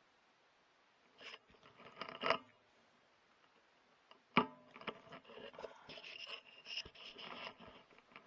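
Scraping and rustling handling noises, with one sharp knock about four seconds in and irregular scraping after it.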